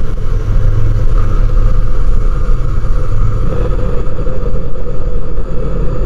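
Dark, dense drone from the "The Tomb" sound-design patch of Soundiron's Tbilat Drum Kontakt library, played on low keys. It is steady and heavy in the bass, and a brighter mid layer swells in about three and a half seconds in.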